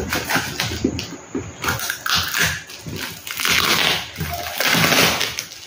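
Clear plastic parcel wrapping crinkling and rustling as it is cut open with scissors, with small clicks and several louder stretches of crackle.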